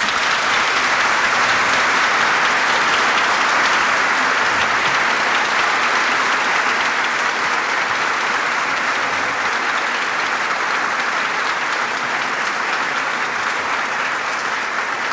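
Audience applauding at length: dense, even clapping that eases slightly near the end.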